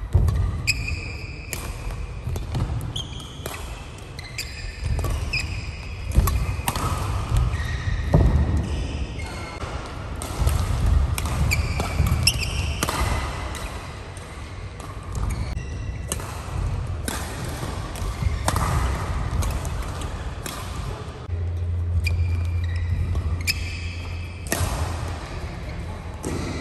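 Badminton play on an indoor court: rackets striking the shuttlecock in sharp cracks and shoes squeaking briefly on the court mat, echoing in a large hall. A low steady hum comes in for a few seconds near the end.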